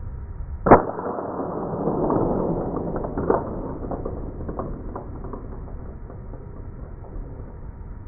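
CO2 airsoft pistol fired once with a sharp crack about a second in. A rushing noise swells and fades over the next few seconds, with a second smaller crack and a few light ticks after it.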